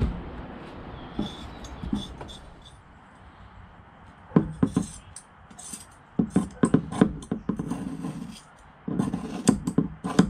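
Irregular taps, knocks and rustles of hands and gloves working stiff fiberglass cloth over a boat part's edge, in clusters through the second half, over a faint steady hiss.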